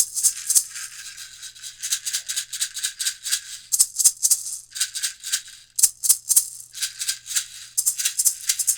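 Traditional wooden maraca shaken in quick, even strokes, its beads rattling in a bright, dry hiss several times a second, with a few short breaks.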